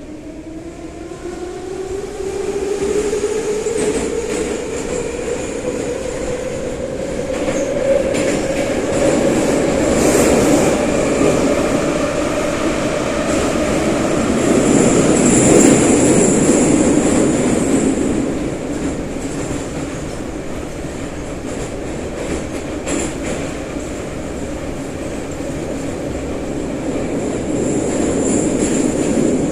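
Saint Petersburg-built 'nomernoy' (81-717/714 type) metro train heard from inside the car as it pulls away: the traction motor whine climbs steadily in pitch for the first several seconds, then the train runs at speed with a steady rumble of wheels on rail and a thin high squeal that comes and goes.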